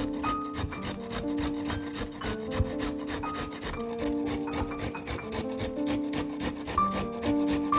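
Vegetables being grated on a hand grater: quick, even rasping strokes, about six or seven a second, over soft melodic background music.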